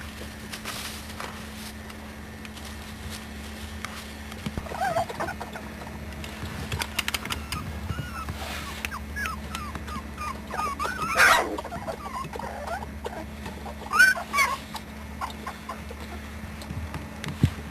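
Young puppies, about three weeks old, giving short high squeaks and whimpers now and then, loudest about eleven and fourteen seconds in.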